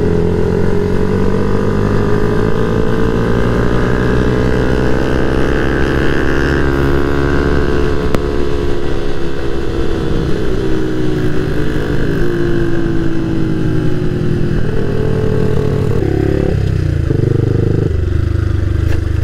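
Motorcycle engine heard from the rider's seat while riding, over wind rush. Its pitch climbs slowly, eases off after about halfway, and near the end changes in steps as the bike comes up to a junction.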